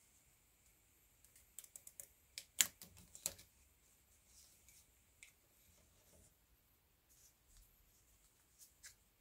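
Masking tape being handled and torn by hand and pressed down over a ski binding's toe piece: a quick cluster of faint crackling clicks a couple of seconds in, then scattered faint rustles.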